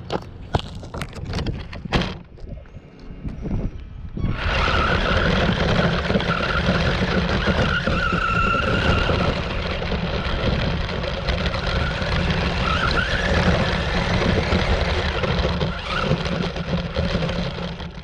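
Radio-controlled car driving: a few sharp knocks, then from about four seconds in a loud steady rush of tyre and ground noise with a faint motor whine rising and falling through it, cutting off near the end.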